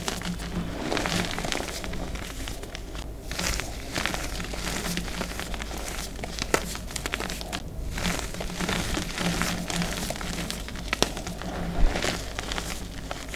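Hands squeezing and crumbling crushed gym chalk, fine powder mixed with small lumps: a steady dusty, crunchy rustle full of small crackling snaps, with a few sharper crunches about 11 and 12 seconds in.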